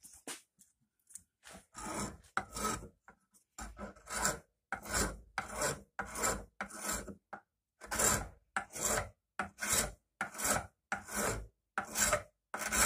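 Coarse wood rasp filing the wooden handle of a small ball peen hammer clamped in a vise: a steady run of back-and-forth strokes, roughly one every second, starting about a second in. The end of the handle is being flattened because it sits high on one side.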